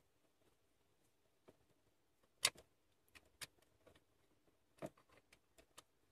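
Scattered faint clicks and taps of an Allen key and small bolts being handled against the throttle body as the bolts are started. The loudest tap comes about two and a half seconds in.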